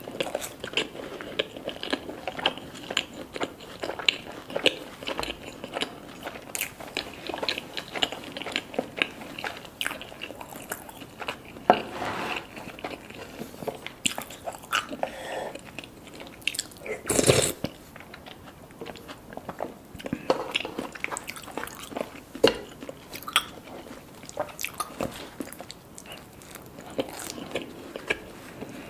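Close-up eating sounds: a person biting and chewing crunchy food, with many small irregular crackles and one louder crunch about seventeen seconds in.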